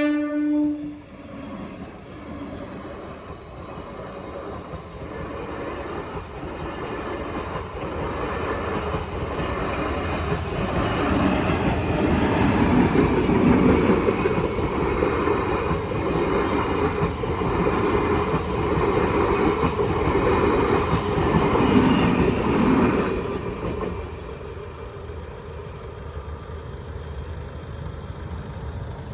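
The last second of a train horn blast, then an Indian Railways train passing: a rumble that builds over about ten seconds, with wheels clacking in a steady rhythm over the rail joints. The rumble drops off suddenly about five seconds before the end.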